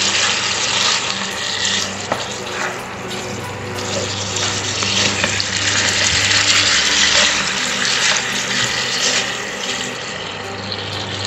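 Mutton pieces sizzling in hot fat in a nonstick wok while a silicone spatula stirs the masala paste through them, a steady frying hiss with stirring noise.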